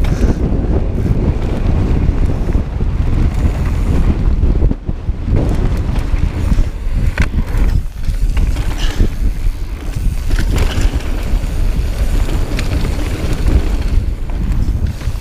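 Wind buffeting the microphone during a fast mountain bike descent: a loud, steady low rumble, with a few sharp clicks and rattles from the bike over rough trail scattered through it.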